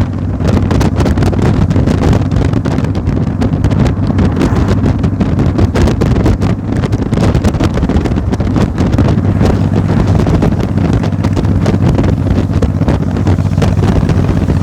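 A steady engine drone with heavy wind buffeting the microphone.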